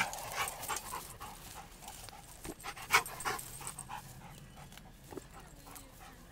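A dog panting in quick breaths, about three a second, with a sharp knock about three seconds in.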